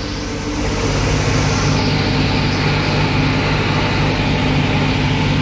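Tractor engine and forage harvester running steadily under load while chopping standing corn for silage.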